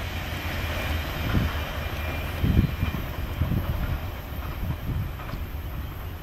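Loaded coal train rolling by on the main line, a steady rumble of wheels on rail with irregular low thumps, the strongest about two and a half seconds in.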